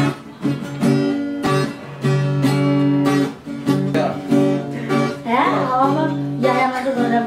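Acoustic guitar strummed in a steady run of chords, with a person's voice briefly over it about five seconds in.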